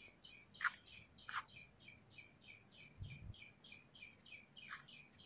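Faint birdsong: a steady run of short falling chirps, about six a second, with a few louder single chirps over it. A dull low thump comes about three seconds in.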